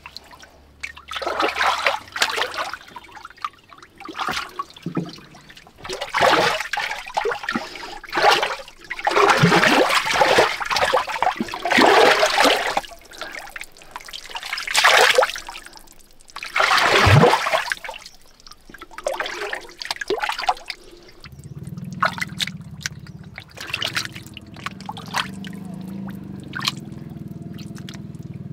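Hands splashing and sloshing through shallow muddy water while groping for fish, in irregular loud bursts. For the last several seconds it gives way to a steadier, lower, quieter sound of stirred water.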